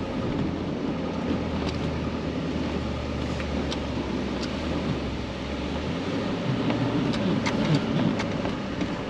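Chevrolet Silverado HD pickup driving on loose beach sand: a steady drone of engine and tires with wind noise and a few light knocks as it rides the ruts. The low hum drops away about six seconds in.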